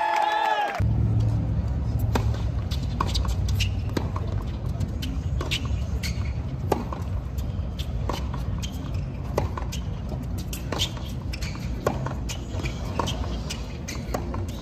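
Tennis ball being struck and bouncing on a hard court during play, sharp pops roughly once a second over a steady low rumble. A brief burst of crowd cheering cuts off under a second in.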